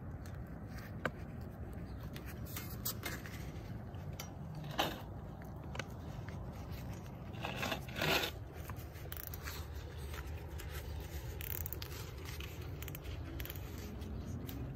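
Plastic zip tie being threaded and pulled tight around wire-mesh fence guard: scattered clicks and scraping, with a louder rasp about five seconds in and a longer one around eight seconds in.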